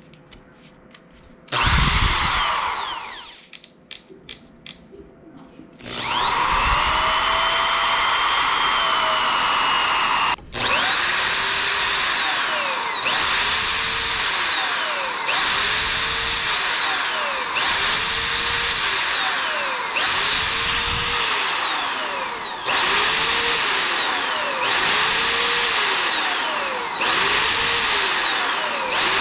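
Total TG107136UP 710 W corded impact drill running with no load. It gives a brief spin-up and wind-down about two seconds in and a few clicks. Then it runs steadily from about six seconds. After a short dip near ten seconds, its whine climbs quickly and sags back over and over, about every second and a half, as the variable-speed trigger is squeezed and eased.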